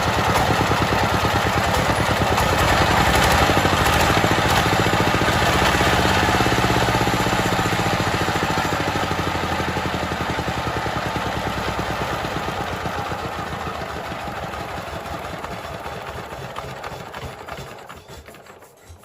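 An engine running steadily with a fast, even beat, fading away over the last several seconds.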